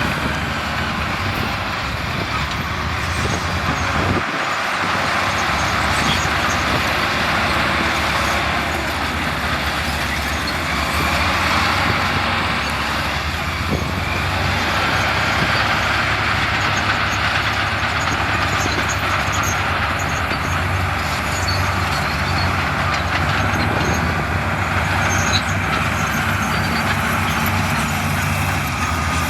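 Heavy diesel earthmoving machinery running steadily: a continuous engine drone with a broad mechanical rumble, the kind of sound a bulldozer and dump trucks make while working rock.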